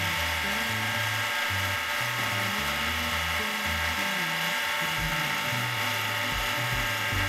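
Mini lathe running at speed with a steady whine from its motor and gearing while an aluminium bar is polished with a wooden dowel and polishing compound. Background music with a stepping bass line plays over it.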